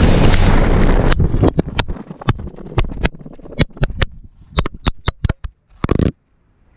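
An action camera falling off a mountain bike, its handlebar mount broken by the vibration of the rough descent. A second of loud riding noise gives way to a run of sharp, irregular clattering knocks as it bounces and tumbles along a gravel track, ending in a short scraping burst as it comes to rest.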